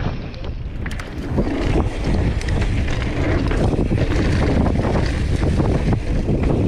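Downhill mountain bike descending fast on a dirt trail, heard through a GoPro's microphone: steady wind rush over the mic mixed with tyres running over dirt and many small rattles and clicks from the bike over the bumps.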